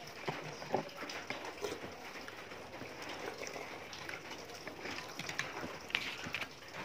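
Eating at a table: a spoon clinking and scraping in a small bowl, with scattered small clicks of cutlery and dishes over a steady background of restaurant noise.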